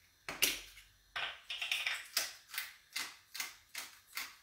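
Hand pepper mill grinding peppercorns: a run of short crunching twists, about two and a half a second, after a first single twist.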